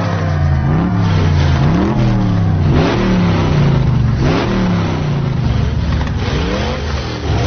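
Old car engines revved hard again and again before a launch, the pitch climbing and dropping roughly once a second. One of them is a stripped-down engine with a turbo added and pushed to too much boost.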